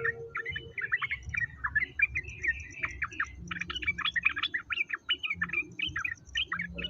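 A songbird singing a fast, continuous run of short chirps and twittering notes.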